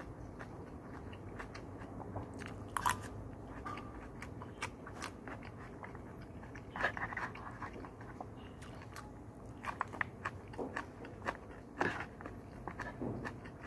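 Close-up chewing and crunching of food, with scattered short clicks and scrapes of a metal spoon against a takeout lunch box, a few louder ones about three, seven and twelve seconds in.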